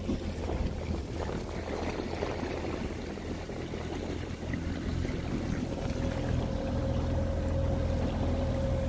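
Outboard motor on a square-stern river canoe running steadily, a low even hum heard from aboard with water and wind noise around it. A faint higher whine joins about six seconds in.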